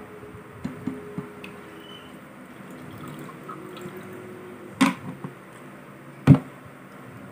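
Things handled on a table: a few small clicks, then two sharp knocks about a second and a half apart, the second louder, over a faint steady hum.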